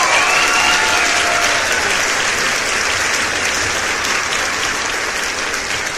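Crowd applauding, with a few cheering voices that fade out in the first second.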